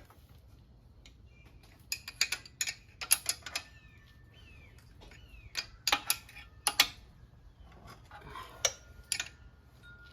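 Scattered metallic clicks and clinks of hand tools being handled and set down, coming in short clusters, after bolts on a motorcycle exhaust have been tightened.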